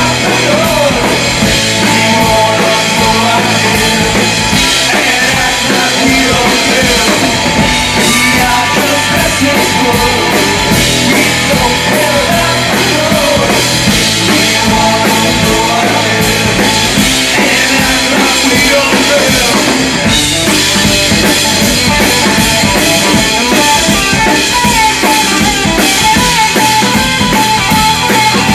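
Live rock band playing an instrumental passage, loud and steady: distorted electric guitar, electric bass and a full drum kit.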